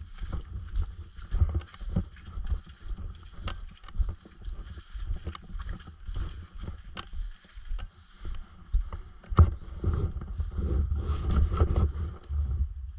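Footsteps crunching and rustling through dry fallen leaves on a forest path, heard through a body-worn action camera that knocks and rumbles with each step, with a few sharper clicks.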